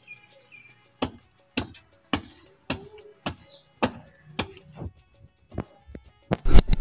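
Sharp blows of a short-handled hand tool chopping a notch into a wooden stake, about two strikes a second, with a louder quick flurry near the end.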